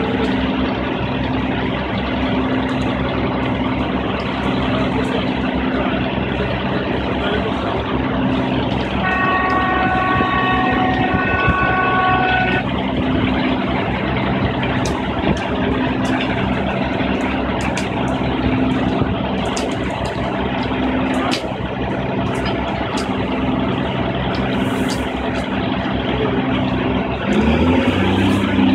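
Heavy construction machinery, a piling rig and a concrete mixer truck, with their diesel engines running steadily. About nine seconds in a horn-like tone sounds for a few seconds with a short break, and near the end an engine speeds up and gets louder.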